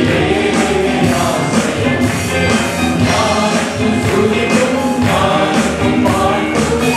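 Congregation singing a gospel worship song together with musical accompaniment and a steady percussive beat.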